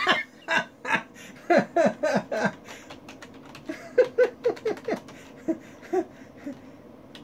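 A man chuckling softly in short laughs, with light clicks of typing on a computer keyboard. The laughs fade out in the second half and the typing clicks go on.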